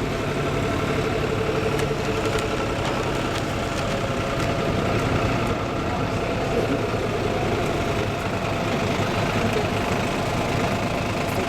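A farm tractor engine running steadily at an even, unchanging pitch.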